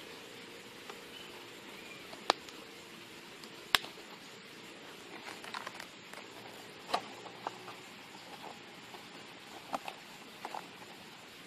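Thin plastic bottle pot crackling and clicking as hands squeeze it and work the seedling's root ball of soil out: two sharp snaps early on, then scattered softer crinkles.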